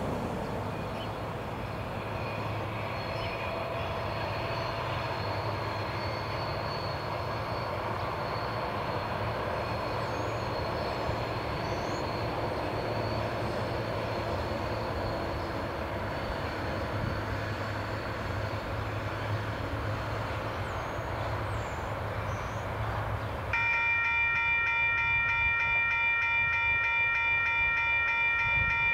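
TasRail TR-class diesel-electric locomotives of a freight train approaching, a steady low engine hum with a few faint bird chirps. In the last five seconds a locomotive air horn sounds one long, steady chord of several tones at once, louder than the engines.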